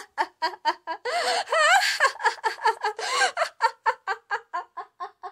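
A high-pitched, cackling villain's laugh, done in a put-on voice: rapid 'ha-ha-ha' pulses at about five or six a second, with a wavering, squealing stretch about a second in.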